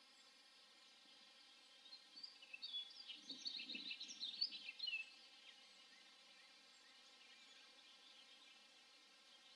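A bird chattering in a quick run of high chirps for about three seconds, with a brief low rough sound under it near the middle, over a faint steady hiss.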